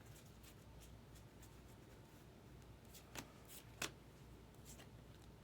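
Faint swishes of baseball cards being slid and flipped through by hand, with a couple of light ticks a little after three seconds in and near four seconds.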